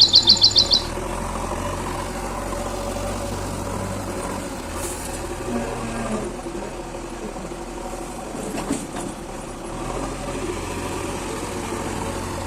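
Backhoe loader's diesel engine running steadily, a low hum. A rapid run of high chirps sounds in the first second.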